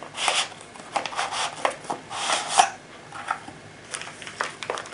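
Packaging being handled as an item is taken out of its box: irregular rustling and scraping, with a few light clicks.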